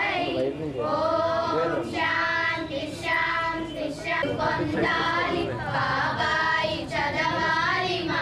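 High female voices singing a song together in short phrases that rise and fall in pitch.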